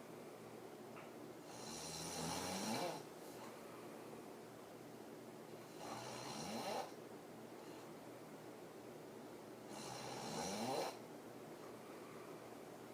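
A woman snoring hard through her open mouth while lying on her back in deep sleep. There are three snores about four seconds apart; each swells and then cuts off sharply with a short rising note.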